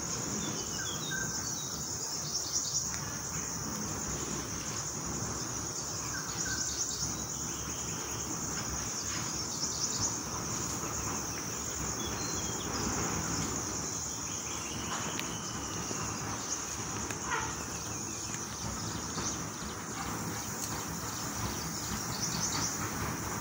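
Forest ambience: a steady, high-pitched insect chorus with short bird calls scattered through it.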